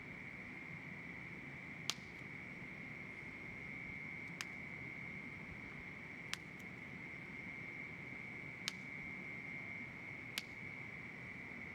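An insect, cricket-like, singing one steady high unbroken trill, with five sharp clicks spaced about two seconds apart.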